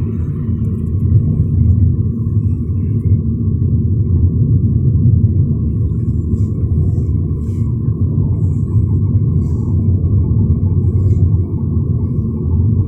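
Steady low rumble of road noise from a car being driven, with a faint steady hum above it and a few light ticks.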